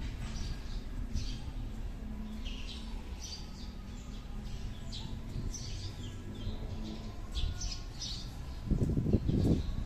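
Small birds chirping repeatedly, in short high calls every half second or so, over a low steady rumble. Near the end there is a louder low rumble.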